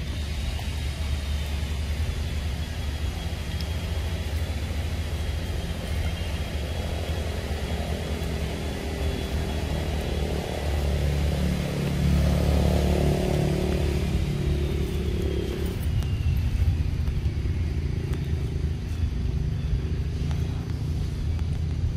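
Low, steady motor-vehicle engine rumble, swelling about halfway through as a vehicle passes, with a thin high whine that holds and then slides down in pitch.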